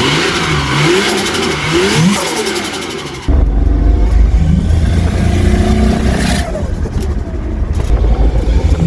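Turbocharged Holden VL Commodore's engine revving, its pitch rising and falling with a hiss over it. About three seconds in, it turns suddenly much louder and runs steadily on.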